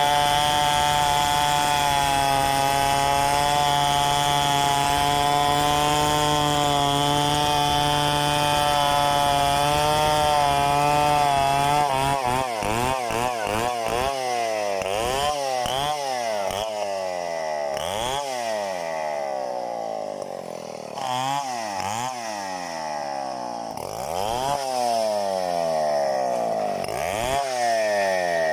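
Two-stroke Stihl chainsaw running at high, steady revs for about twelve seconds, then revved up and down over and over, its pitch dropping and climbing again every second or two.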